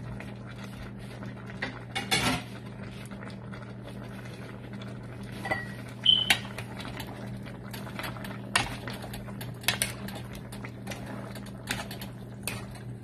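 A metal spoon clinking and scraping against a metal wok while string beans are stirred into a coconut-milk stew of squash. The knocks come irregularly, the loudest a ringing clink about six seconds in, over a steady low hum.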